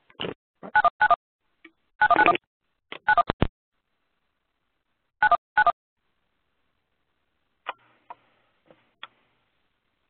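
Telephone keypad tones on a conference-call line: short two-tone beeps in quick bunches as callers press keys on their phones.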